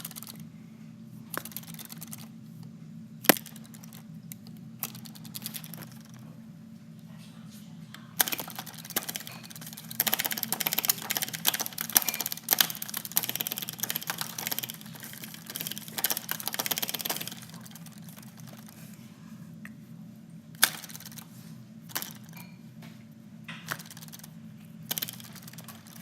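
Sharp clicks and taps, scattered at first, then a dense rapid run lasting several seconds in the middle, then scattered again, over a steady low hum.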